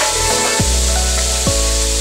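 Background music with sustained notes and deep bass notes that drop in pitch, one about half a second in and another about a second and a half in.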